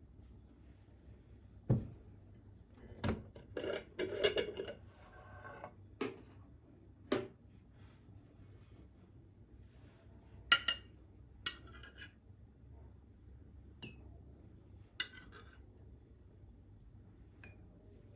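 Kitchenware being handled and set down: a scattered series of separate knocks and clinks of dishes and utensils, some with a short ring. There is a busier cluster about three to five seconds in, and the sharpest clink comes about ten and a half seconds in.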